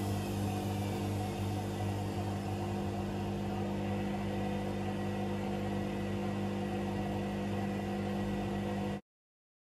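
A machine running with a steady, even hum, its pitch unchanging, cutting off suddenly about nine seconds in.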